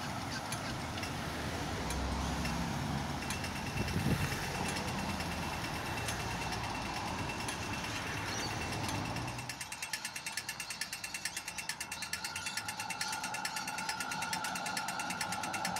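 Cars passing through a street intersection. A little over halfway in, the traffic noise drops away and a pedestrian crossing signal starts a rapid, even ticking for the walk phase, with a faint steady whine building near the end.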